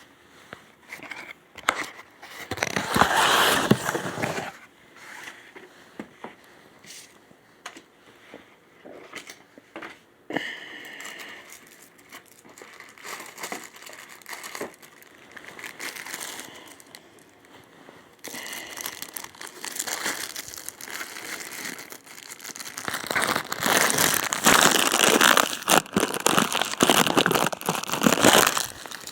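Packaging being handled while unboxing a radio: crinkling and rustling with scattered clicks and taps. It is loudest for a couple of seconds near the start and again through the last several seconds.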